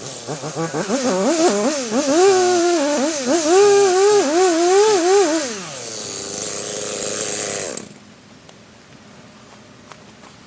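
Two-stroke chainsaw cutting through the trunk of a leaning pine, its engine pitch rising and dipping over and over under load. It then drops to a steady idle and is shut off suddenly about eight seconds in.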